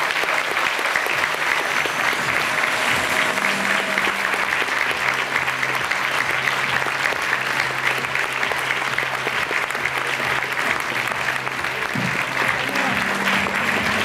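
Audience applauding, dense and steady, with music coming in underneath from about three seconds in.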